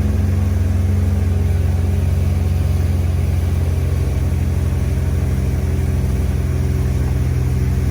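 Tour boat's engine running steadily under way with a constant drone, its pitch easing slightly lower partway through.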